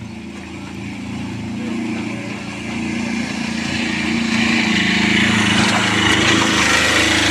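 Small goods truck's engine running as it drives through floodwater and passes close by, growing steadily louder, with a rising hiss of water swishing under its tyres.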